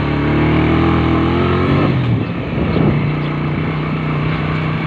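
Small motorcycle engine running steadily while riding, its note changing about two seconds in as it settles to a lower, steady drone.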